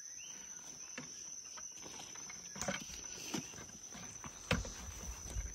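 Crickets chirring steadily at a high pitch, with a few short knocks and rustles, the loudest about four and a half seconds in.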